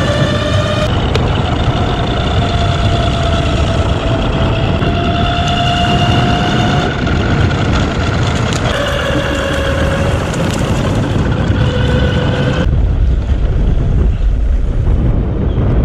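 A motor vehicle running: a steady low rumble with a pitched whine over it that jumps to a new steady pitch several times and drops out near the end.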